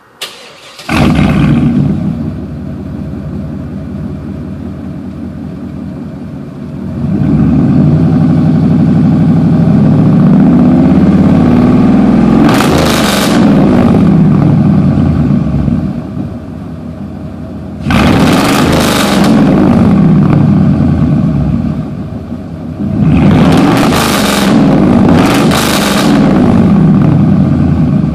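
2002 Chevrolet Silverado 2500HD's 8.1-litre Vortec V8 heard through its true dual exhaust. It starts up about a second in and settles to idle, then is revved again and again: a long rev held for several seconds, back to idle, then several shorter revs.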